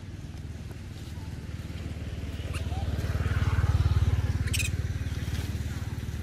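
A motor vehicle passing by out of sight, its low, rapidly pulsing engine growing louder to a peak about four seconds in and then fading. Two brief sharp sounds stand out over it, one a little before the peak and one just after.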